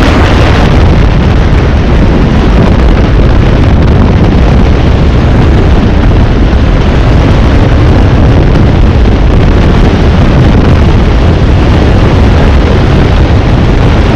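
Loud, steady wind buffeting on an outside-mounted microphone, mixed with the 2001 Ford Mustang GT's V8 as the car is driven hard.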